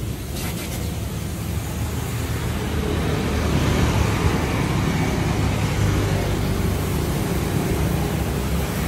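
Kubota L5018 tractor's diesel engine running steadily, growing somewhat louder around four seconds in.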